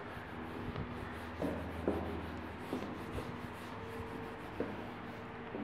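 Whiteboard eraser rubbing across a whiteboard in repeated strokes, wiping off marker writing, with a few light knocks.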